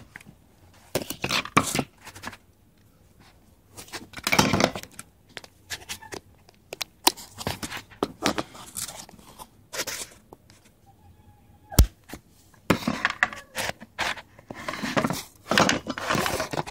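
Handling noise from a handheld camera being swung about and rubbed: irregular bursts of rustling and scraping, with one sharp click a little past the middle.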